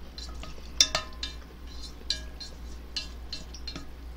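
Chopsticks and a wooden spoon clinking and scraping against a pot of ramen as noodles are lifted out, with a series of separate sharp clinks, the loudest about a second in.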